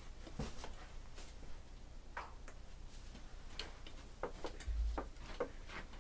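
Scattered light clicks and taps of a computer keyboard and mouse, about fifteen at an uneven pace.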